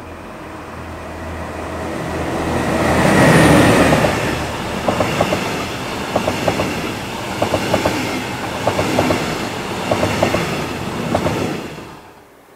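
A DB class 245 (Bombardier TRAXX P160 DE ME) diesel locomotive passes, its diesel engine sound swelling to a peak about three and a half seconds in. Its double-deck coaches then roll by, with quick groups of wheel clicks over the rail about every second as each pair of bogies goes past. The sound drops off sharply near the end.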